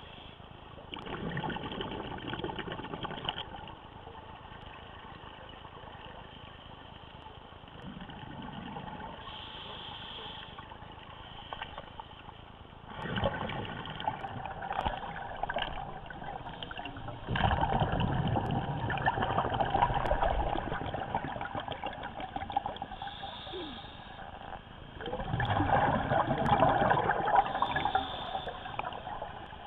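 Scuba regulator exhaust bubbles heard underwater: four surges of bubbling, each a few seconds long, between quieter stretches of steady rushing.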